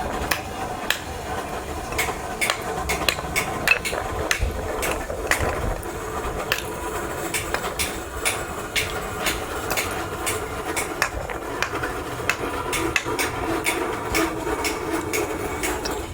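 Irregular hammer blows in a scrap workshop, sometimes several a second, over a steady machine hum: typical of scrap compressors being knocked apart.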